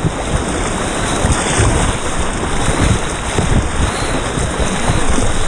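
Whitewater rapid rushing loudly around a kayak as it runs down through the waves, with paddle splashes and irregular low buffeting on the microphone.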